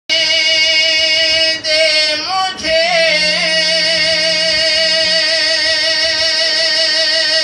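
A singer holds a long sustained note in a naat with a wavering vibrato, sliding in pitch briefly about two seconds in before settling back on the held note.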